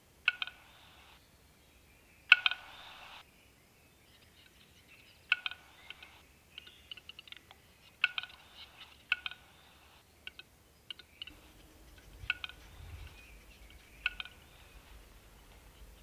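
Male western capercaillie singing its display song: sharp clicks, mostly in pairs and a second or more apart, with a quicker run of softer clicks in the middle. Some clicks are followed by a short scraping hiss, the longest after the loudest click about two seconds in.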